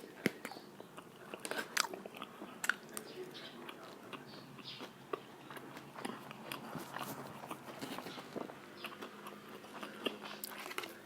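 A person biting into and chewing Jollibee spicy Chickenjoy fried chicken, with faint short crunches of the crispy coating scattered throughout.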